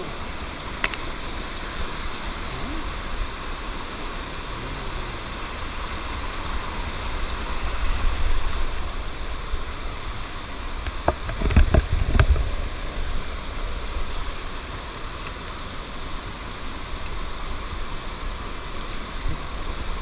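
Rushing water of a rocky mountain stream pouring over boulders in small cascades, a steady hiss. A few low bumps and short knocks come about halfway through.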